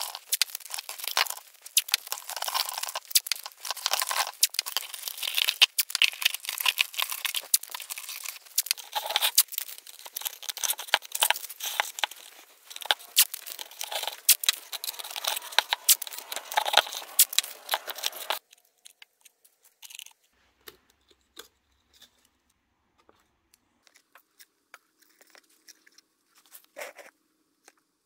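Blue painter's tape being pulled off the roll, torn into strips and pressed onto plastic bowls: a dense run of crackling peels and tears that stops abruptly about two thirds of the way through, leaving only faint scattered ticks and rustles.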